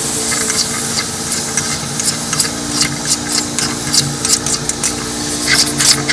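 Metal spoon stirring cucumber pieces and shrimp in a hot metal pan of frying masala: many quick irregular scrapes and clicks of spoon against pan, denser near the end, over a steady sizzle.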